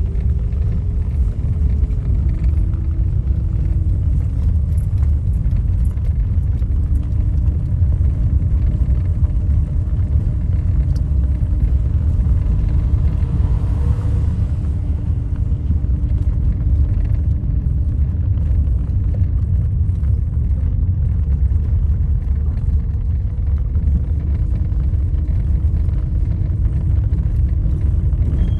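Steady low rumble inside a moving car's cabin as it drives alongside a freight train, heard through closed windows. A faint hum shifts in pitch now and then.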